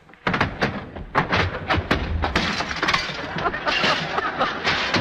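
Live radio sound effect of a fistfight made by hand: a quick run of sharp smacks and thumps from a fist punching an open palm and blows on the chest, then a dense clatter of thrown chairs, splintering wooden fruit baskets and smashing glass.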